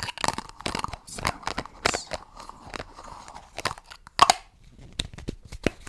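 Close-miked ASMR handling sounds: a run of irregular sharp clicks and crackles, one louder click about four seconds in.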